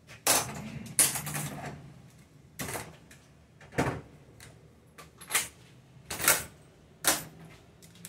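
A string of about seven short clatters and rustles, the handling of tools out of view, with quiet gaps between them.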